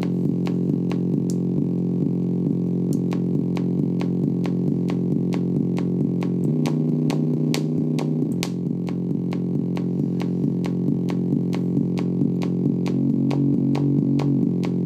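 MFOS Noise Toaster DIY analog synthesizer playing a low, buzzy drone with a steady clicking pulse. The low notes change at about six seconds in and again near the end.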